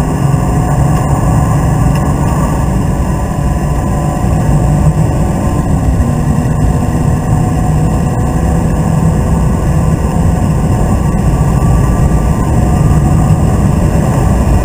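Inside the cabin of a BMW Z3 coupe driven hard on a race track: the straight-six engine runs loud and steady under load, mixed with heavy road and tyre rumble. There are a few small knocks along the way.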